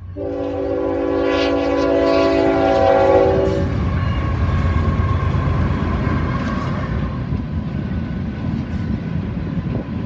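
Union Pacific GE ET44AH locomotive's multi-chime air horn sounding one long blast for the grade crossing, cutting off about three and a half seconds in. The locomotive's GEVO diesel engine and wheels then run past close by in a loud, steady rumble.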